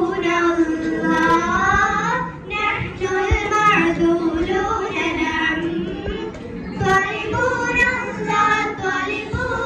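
A group of girls singing an Arabic Islamic song together, in long held notes that bend and ornament the melody, with a brief breath pause about two and a half seconds in.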